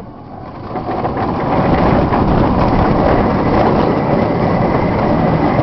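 Inverted roller coaster running at speed: the rumble of the train on its track mixed with rushing wind on the microphone. The noise drops briefly at the start and builds back up within about a second.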